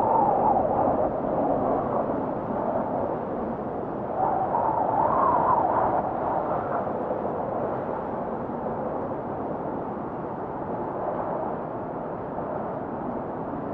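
Recorded wind noise: a steady rushing wind that swells near the start and again about four to six seconds in, then settles a little lower.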